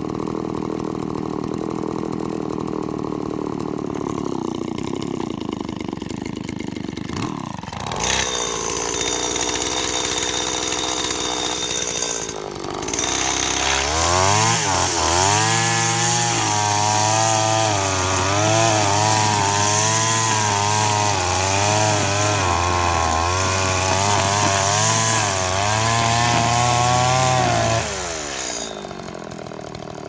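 Petrol brushcutter engine idling steadily, then revved up to full throttle a little before halfway. Its pitch wavers as it cuts through grass, and near the end it drops back to idle.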